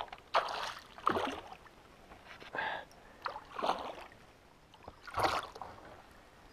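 A hooked saratoga thrashing at the surface beside a kayak, water splashing in about five short bursts.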